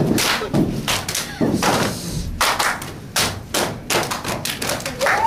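Dancers stomping and clapping in a routine: a string of loud, irregularly spaced thumps and claps, about a dozen in five seconds, with some voices among them.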